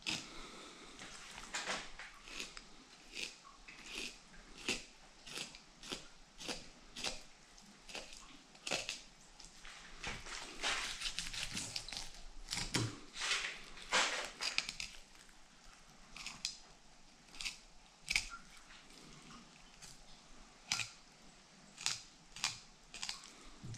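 Knife cutting through a northern pike's flesh and skin in short strokes, about one a second, coming thick and fast for a few seconds in the middle.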